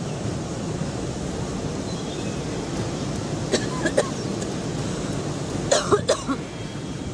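A person coughing a few short times in two groups, about halfway through and again near the end, over a steady rush of wind noise.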